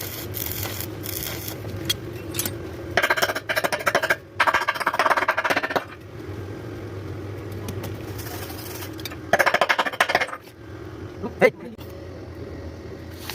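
Electric welding arc crackling in three short bursts of a second or so each, with a steady low hum between them and a single sharp click near the end.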